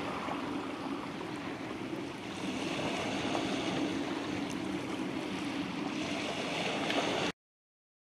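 Shallow seawater washing over rocks at the shoreline, a steady wash of small waves that cuts off suddenly near the end.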